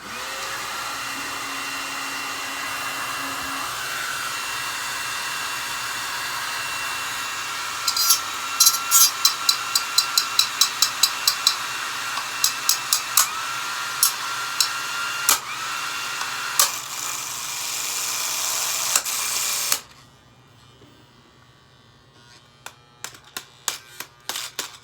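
Hair dryer running, its fan motor whining steadily; about eight seconds in, a pry bar is pushed into the spinning fan blades, giving a rapid run of sharp clattering strikes for several seconds while the motor's whine dips in pitch. The dryer cuts off suddenly near twenty seconds in, and a few lighter clicks follow near the end.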